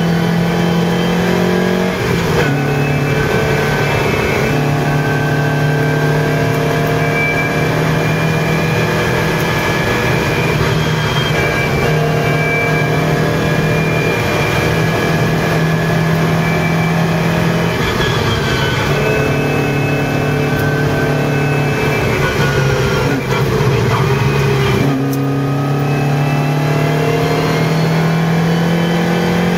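Lotus Europa GT 1600's engine pulling hard at high revs, heard from inside the cabin, its pitch stepping at gear changes about 2 seconds in, around 18 seconds and again about 25 seconds in.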